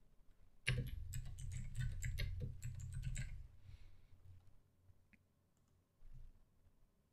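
Typing on a computer keyboard: a quick run of keystrokes lasting about two and a half seconds, then a lone click a few seconds later.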